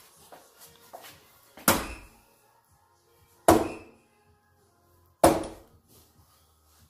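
Three soft-tip darts hitting a Gran Board 3s electronic dartboard, each a sharp clack with a brief fading tail, a little under two seconds apart.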